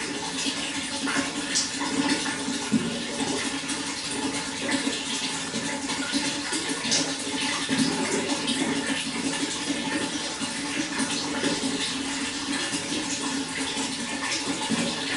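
Running water in a steady, continuous splashing flow, with small bright splashes scattered through it.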